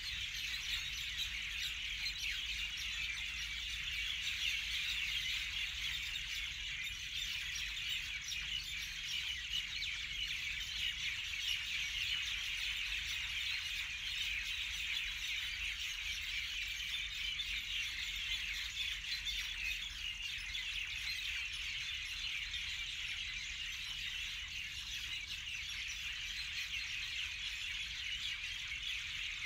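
Many birds chirping and twittering together in a steady, dense chorus, with a low rumble underneath.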